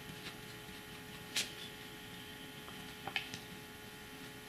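Fountain pen with a fine 18-karat gold nib writing on paper: faint scratches and short ticks as the nib touches down and lifts. There is one sharper tick about a third of the way in and a quick little cluster of ticks about two-thirds through, over a steady low hum.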